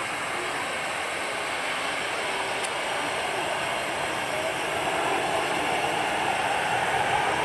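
Boeing 737-800 jet engines (CFM56-7B turbofans) on a landing touchdown and rollout: a steady rushing jet noise that grows louder through the second half.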